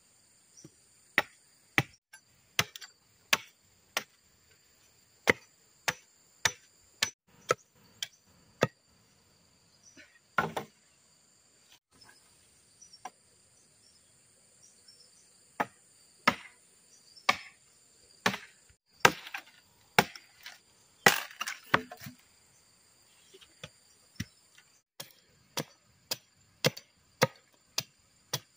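Machete chopping at the end of a wooden pole to sharpen it into a stake: sharp separate strikes, roughly one to two a second, with a pause of a few seconds midway. Insects shrill steadily in the background.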